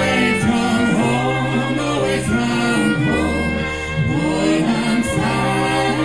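A live folk band singing in harmony, several voices holding long notes over strummed acoustic guitars and electric bass.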